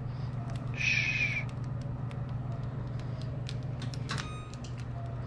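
Crust of a freshly baked no-knead bread loaf crackling as it cools: fine, scattered ticks and snaps as the steam inside contracts, the sign of a thin, crispy crust. About a second in, a brief louder harsh sound, and about four seconds in a short ringing ping, over a low steady hum.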